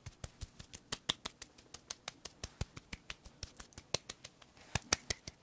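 Close-miked hand sounds: palms slick with milk pressed together and patted against each other, giving a quick, irregular run of small wet clicks, several a second.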